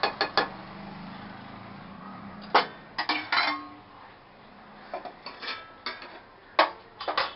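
A spatula knocking and scraping against a kadhai as cooked vermicelli is stirred, in several short clusters of clinks and taps, then a steel lid clanking onto the pan near the end.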